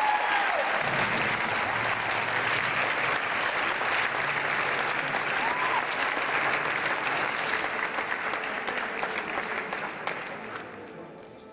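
Audience applauding: dense, steady clapping that thins out and dies away over the last two seconds.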